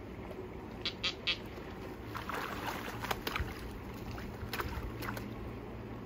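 Water sloshing and splashing around a person wading knee-deep while lifting an osprey off a branch. Three quick high-pitched sounds come about a second in, and a few more short sharp sounds follow later.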